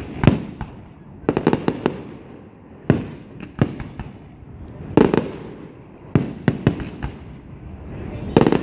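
Fireworks display: aerial shells and rockets bursting in a rapid series of sharp bangs, some single and some in quick clusters, each followed by a rolling echo.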